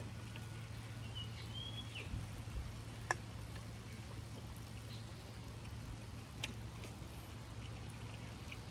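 A canned highball poured into a mug, a faint trickle under a steady low hum, with a bird's short chirping call about a second in and a sharp knock about three seconds in as the aluminium can is set down on a wooden table.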